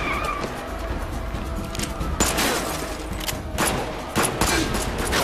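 Handgun shots, several in a ragged series starting about two seconds in, over dramatic action-scene music.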